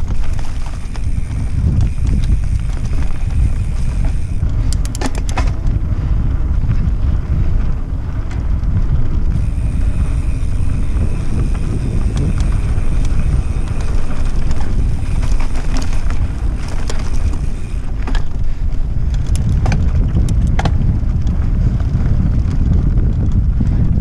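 Mountain bike ridden over a dirt singletrack: wind rumble on the microphone and tyre noise on dirt, with sharp clicks and rattles from the bike over bumps, a cluster about five seconds in and several more in the second half.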